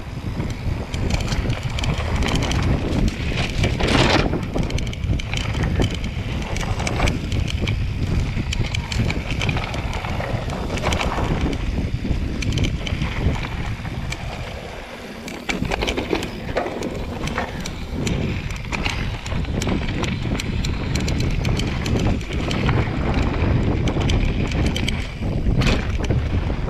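Mountain bike riding fast downhill on a dirt trail: wind buffeting the bike-mounted microphone, tyres rolling over the ground, and the bike rattling with frequent clicks and knocks over bumps. It eases briefly about fourteen seconds in.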